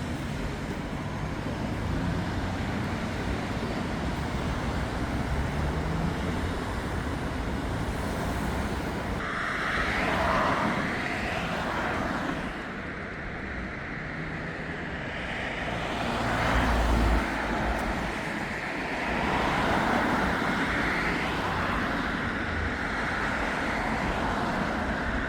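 City road traffic: vehicles passing steadily on a busy street, with louder passes about ten and seventeen seconds in.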